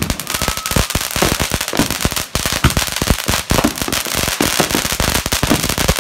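Consumer ground firework going off in a box on the lawn: a dense, rapid run of crackling pops that carries on without a break.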